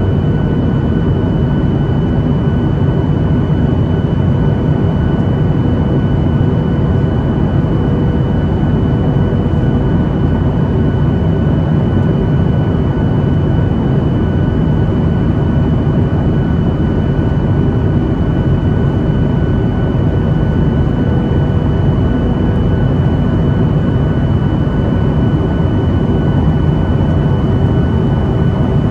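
Jet airliner in flight heard from inside the cabin: a steady, even engine and airflow noise with faint thin steady whines above it.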